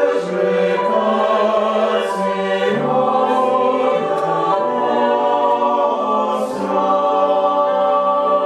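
Choir singing held chords that change every second or so, with the hiss of sung consonants cutting in about two seconds in and again near the end.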